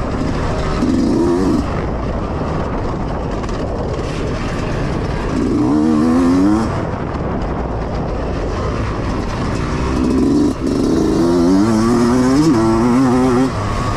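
Yamaha YZ125X 125 cc two-stroke dirt bike engine being ridden hard, revving up and down; the pitch climbs in a run about halfway through, then in several stepped runs near the end as it shifts up through the gears.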